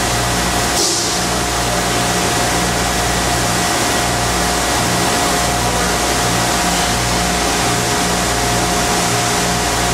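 Steady, loud industrial machinery noise in a shot-blast plant: a constant hiss with a steady whine and a low hum that swells and fades, plus a short hiss about a second in.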